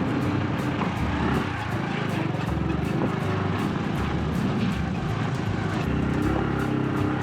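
Motorbike taxi's engine running steadily under way, heard from on the bike.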